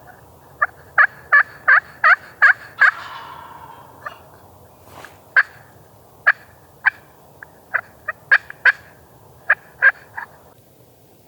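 Wild turkeys calling at close range and loud: a quick run of sharp notes, about three a second, then a fading rattle and more scattered single notes.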